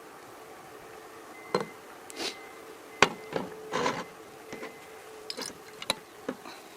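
Several sharp clicks and knocks with short rustles, like objects being handled and set down, over a steady hum.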